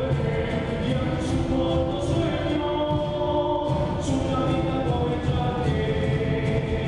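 Live Bolivian tinku music: a group singing together over steady drum accompaniment.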